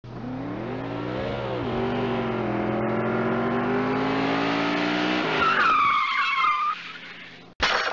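Car sound effect: an engine revving, its pitch rising and then climbing steadily, followed about five and a half seconds in by tyres screeching for about a second. A sudden loud crash begins right at the end.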